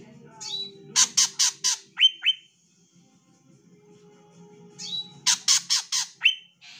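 Female greater green leafbird (cucak ijo) calling in two matching phrases. Each phrase is a rising note, four harsh rasping squawks at about four a second, and two short downward chirps. It is the female's call, played as a lure to set male leafbirds singing.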